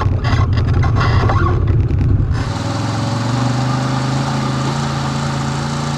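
Side-by-side UTV engine running with a dense, rattling rumble. About two seconds in the sound changes abruptly to a steadier, even engine note.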